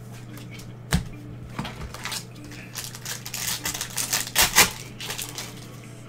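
Trading card pack wrapper crinkling and tearing as it is ripped open, in a quick run of irregular crackles that are loudest near the middle, after a sharp click about a second in. A steady low electrical hum runs underneath.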